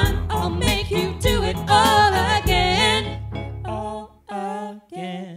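Pop song with a backing track of drums and bass and voices singing the melody together. About three seconds in the backing fades out and the voices finish alone with a few short, separate sung notes.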